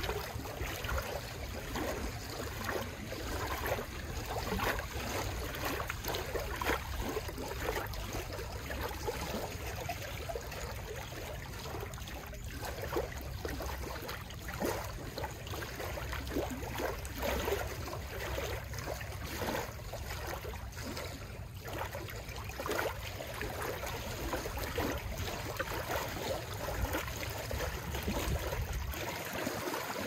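Small lake waves lapping over the wet wooden planks of a dock, a continuous run of small, irregular splashes and trickles as the water washes up and drains back.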